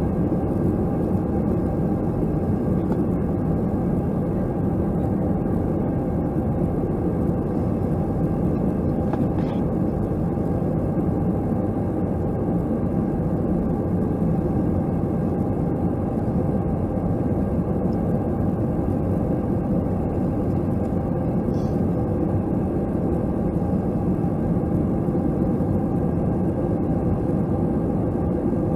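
Steady cabin noise of an Airbus A321 in flight: engine and airflow drone, constant and low, with a few faint steady tones in it.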